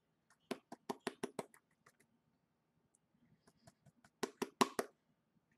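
Glitter slime being squeezed and worked in the hands, making quick runs of short sticky clicks and pops: a burst of about half a dozen in the first second and a half, and another tight cluster a little past four seconds.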